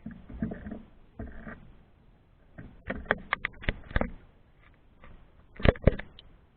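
Handling noise: a quick run of sharp clicks and knocks about three seconds in, then two louder knocks shortly before the end.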